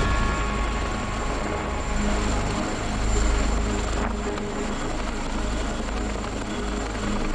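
Boeing CH-47 Chinook tandem-rotor helicopter hovering, its rotors and turbines making a steady, deep rotor noise.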